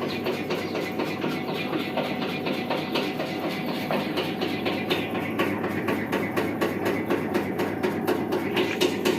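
Motor-driven flour-sifting machine running, its sieve shaking with a fast, even mechanical rattle.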